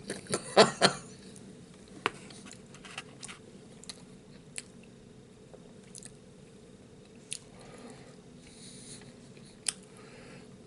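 A man chewing food close to the microphone, with a few sharp clicks spread through the chewing.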